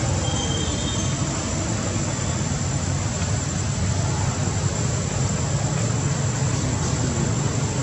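Steady background drone: an even noise, heaviest low down, with a constant thin high-pitched whine over it.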